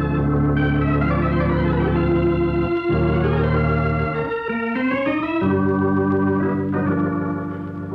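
Organ music bridge marking a change of scene in a radio drama: sustained organ chords that change twice, with a rising slide about five seconds in.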